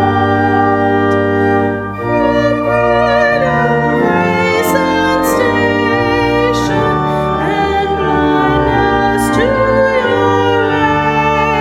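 Organ music with held chords, and a singing voice with vibrato over it.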